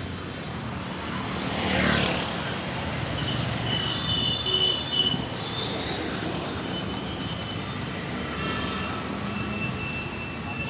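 Road traffic noise heard from a moving vehicle: a steady rush of engine and road noise, with a vehicle sweeping past about two seconds in and a few faint high tones later on.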